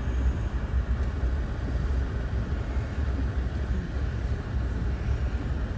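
Car driving on a snowy road, heard from inside the cabin: a steady low rumble of engine and road noise.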